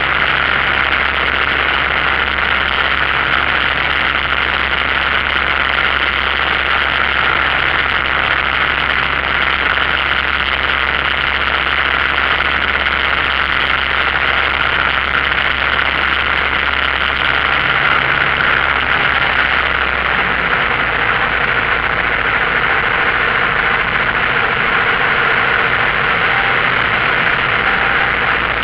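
Light aircraft's piston engine and propeller running steadily in flight, heard from inside the cockpit as a loud, even drone with rushing air. The lowest hum changes about twenty seconds in.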